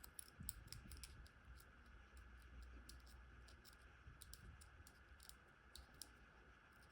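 A string of faint, irregular small clicks from the number wheels of a cheap combination padlock being turned by hand.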